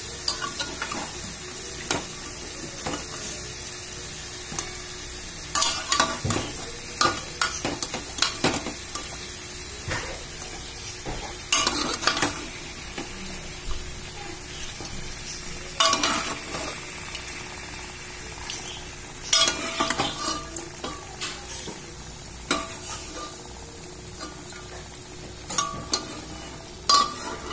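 Mutton curry masala sizzling in a hot kadai, a steady hiss. Every few seconds a utensil scrapes and knocks against the pan in clusters as the boiled mutton pieces are added and turned into the masala.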